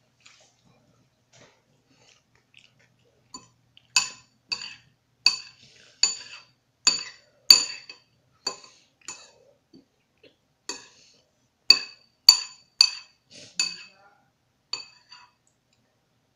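Spoon clinking against a cereal bowl while eating: a run of sharp, ringing clinks, one or two a second, with a short break around the middle.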